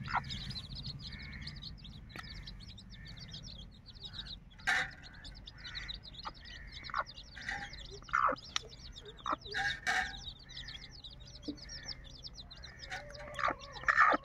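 Young chickens peeping, with short, downward-sliding calls scattered through, over a continuous fast, high-pitched chirping.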